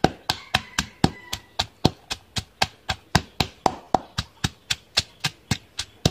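Pestle pounding chillies, lemongrass, garlic and salt in a granite mortar into a curry paste: a steady run of sharp strikes, about four a second.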